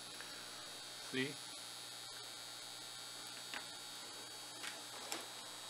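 Steady electrical hum with a faint high whine, broken by a few faint ticks. A brief murmured voice comes about a second in.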